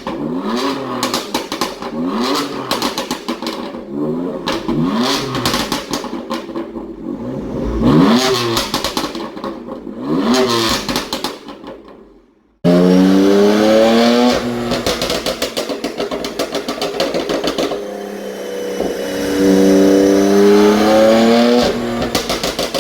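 BMW M4's tuned turbocharged straight-six free-revving in short blips about every two seconds, each rise in revs falling back with rapid popping and crackling from the exhaust on the overrun, the work of a crackle-and-burble tune. About halfway through, the sound breaks off and resumes with longer revs held higher, with more crackling between them.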